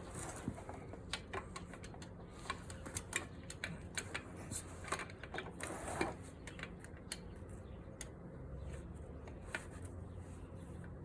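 Irregular light clicks and taps of a hand tool on metal as it works at the oil strainer cap on the side of a scooter engine.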